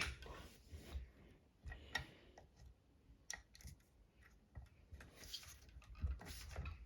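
Faint, scattered clicks and light knocks as the folding stem of an AOVO Pro electric scooter is worked and re-tightened during adjustment.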